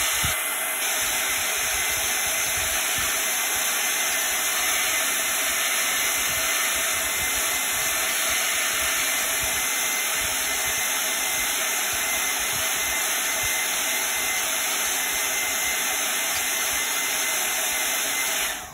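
Handheld hair dryer blowing steadily, switched off just before the end.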